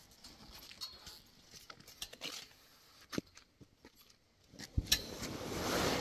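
Light clinks of metal hooks against a tent's metal pipe frame while a canvas cover is fastened to it, then heavy canvas rustling that swells near the end.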